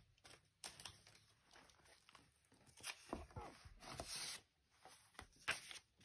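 Paper rustling and soft taps as the pages of a thick handmade journal are turned and a cut paper pocket is handled. The rustles come in short, scattered bits, with a longer one about three to four seconds in.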